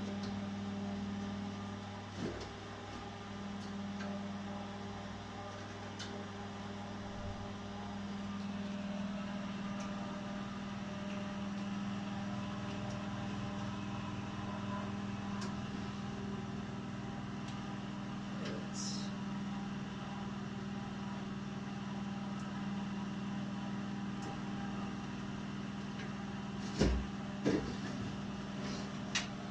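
Egg incubator running with a steady electric hum, its lowest tone dropping out about eight seconds in. A few sharp knocks near the end as eggs and trays are handled.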